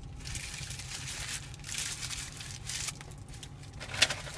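Paper rustling and crinkling in a run of short, noisy bursts, with a sharp click about four seconds in.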